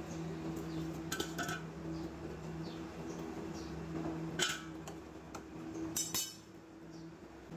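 Metal tongs clinking on a gas stove's wire grate and steel bowl as lit charcoal lumps are lifted off the burner and dropped into the bowl. The sharpest clinks come about four and a half and six seconds in, over a steady low hum.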